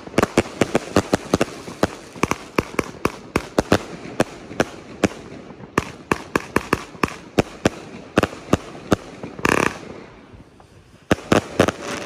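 A 40-shot, 25 mm-calibre firework battery (Diamond Feuerwerk Devils Gate) firing its shots in quick succession, several sharp bangs a second. After a short lull about ten seconds in, a last cluster of shots goes off.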